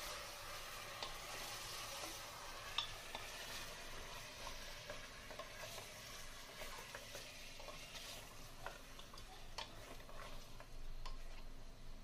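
Food sizzling as it fries in oil in a pot, with a spoon stirring and clicking against the pot, one sharper knock about three seconds in.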